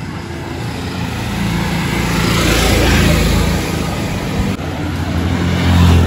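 Street traffic: a vehicle passes close by, its engine and tyre noise swelling and peaking about halfway through. Near the end a bus's engine grows louder as it approaches.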